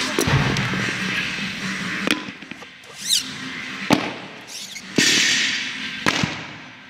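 Weight plates being handled on a barbell sleeve: metal scraping as plates slide on the sleeve, and about four sharp clanks. Faint background music underneath.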